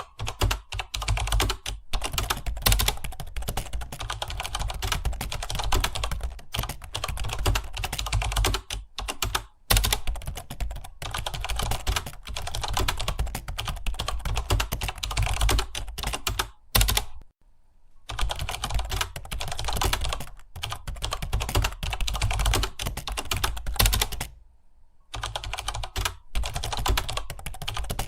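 Rapid, continuous typing on a computer keyboard, keys clattering, with two short pauses: one a little past the middle and one near the end.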